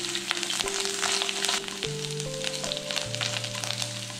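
Garlic and green chillies sizzling in hot oil, with dense rapid crackling, stirred with a spatula in the pan. Soft background music with long held notes plays underneath.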